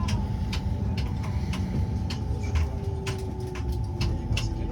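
Tram running, heard from inside: a steady low rumble with a faint steady tone, and sharp ticks about twice a second throughout.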